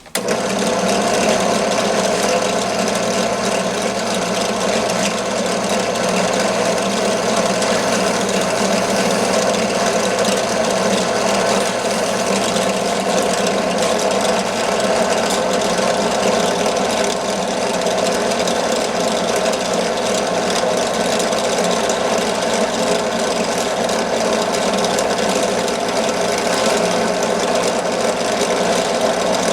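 Benchtop drill press running steadily, switching on abruptly, while the carburettor float needle chucked in it is spun and its tip honed with a steady scraping, to sharpen the point so it seals in its seat.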